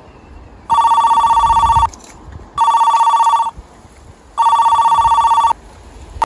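A telephone ringing in trilling rings about a second long, with a shorter pause between them: three full rings and a fourth starting at the very end.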